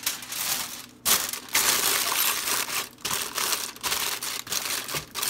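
Aluminium foil crinkling in bursts of rustling as it is crimped down over a glass baking dish.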